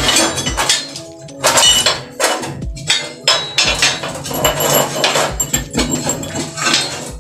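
Irregular clanks and knocks of steel square tubing and a steel pipe being handled and set against each other, over steady background music.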